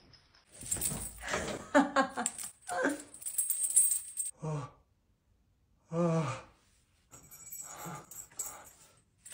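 Metal chains clinking and rattling, mixed with a pitched, voice-like sound that falls in pitch twice around the middle.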